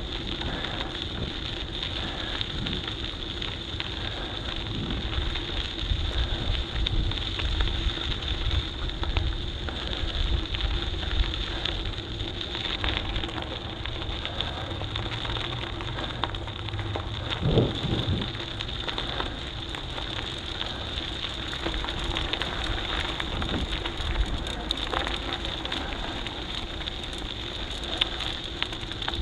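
Mountain bike being ridden over rough ground: a steady rolling rush with many small crackles and wind rumbling on the microphone. A brief rising tone comes about halfway through.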